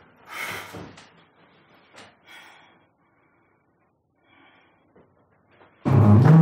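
A woman breathing hard after shouting, a sharp breath about half a second in, followed by a few faint breaths and small clicks. About six seconds in, a sudden loud low sound cuts in.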